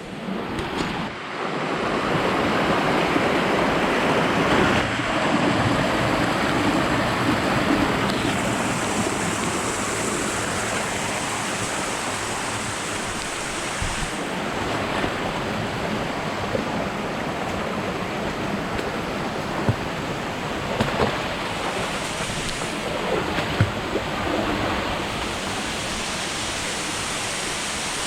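Steady rush of flowing water from a forest stream or waterfall, with a few faint clicks.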